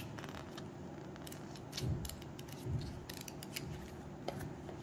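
Glossy paper instruction leaflet being folded and handled, giving a run of small crisp clicks and crackles that are thickest in the middle.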